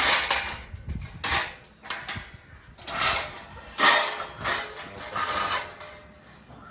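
Metal parts of a portable barbecue grill rattling and scraping as they are handled and fitted together, in several short irregular bursts.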